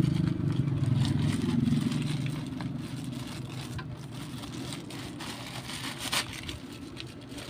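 A motor vehicle engine running with a steady low hum, fading away over the first few seconds. A plastic courier pouch rustles as it is handled, sharpest about six seconds in.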